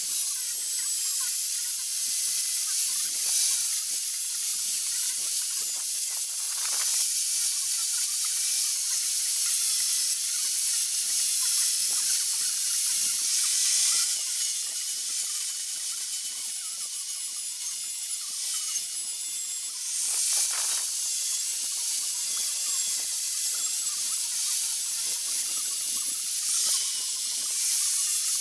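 A high-speed power tool running continuously with a dense, high hiss and a faint wavering whine, letting up briefly twice.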